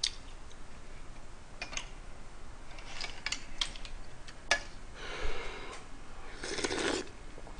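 Metal utensils clink a few times against a ladle and pot. About five seconds in, hot broth is slurped from a metal ladle in two sips.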